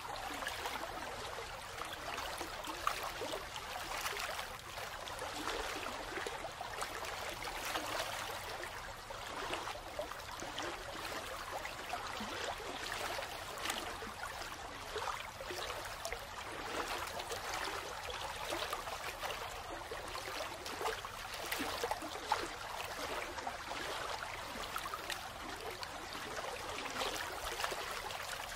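Steady sound of running water, an even rushing hiss with fine crackle throughout.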